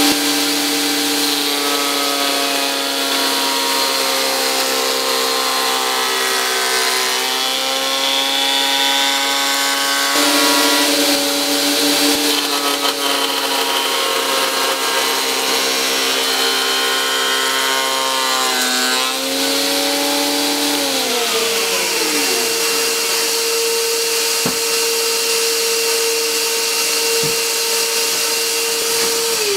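Benchtop planer-thicknesser running and face-planing oak, its motor whine sagging in pitch a few times as the cutter block takes load on each pass. About two-thirds of the way through the machine spins down with a falling whine, while a steady whine carries on until it drops away at the very end.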